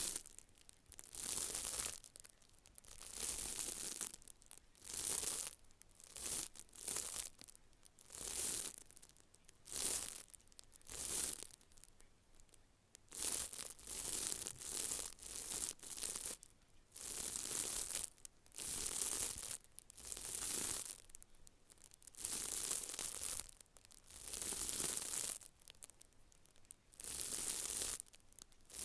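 Close-miked scratchy swishing strokes in an even rhythm, about one a second, each under a second long with short quiet gaps between.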